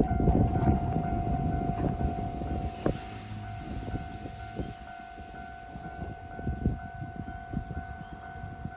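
Japanese level-crossing warning bell ringing, a steady electronic tone that pulses in a regular repeating pattern, over the rumble of a passing JR Nambu Line E233-series train that fades away over the first few seconds.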